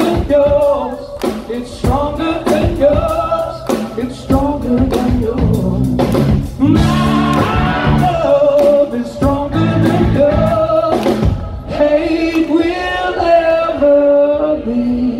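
Live rock band playing loudly, a male singer belting over electric guitars, bass and drums. About three quarters of the way through, the drums drop out, leaving the voice over held chords.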